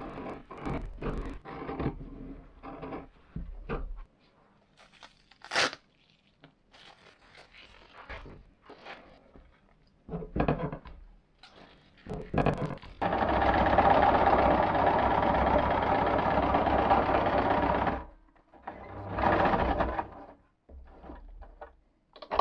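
Electric sewing machine stitching hook-and-loop tape onto rubberised fabric: it runs steadily for about five seconds, stops, then gives a shorter burst. Before that come scattered rustles and clicks of the fabric and tape being handled.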